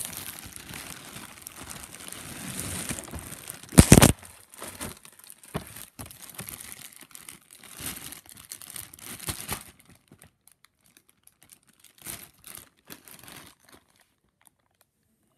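Plastic padded mailer and plastic bags crinkling and rustling as hands dig the contents out, with one loud sharp crackle about four seconds in. The rustling then comes in short scattered bursts and dies away in the last couple of seconds.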